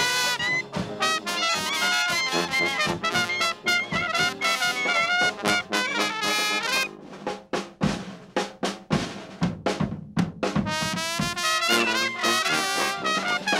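A New Orleans traditional jazz band playing live: trumpet and clarinet lines over sousaphone and drum kit. In the middle the horns thin out and the drums come forward for a few seconds, then the full band returns.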